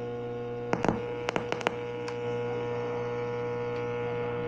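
Homemade crystal radio set's audio giving only a steady mains hum and no station, with the ground wire connected directly. A few sharp clicks come about a second in as the wiring is handled.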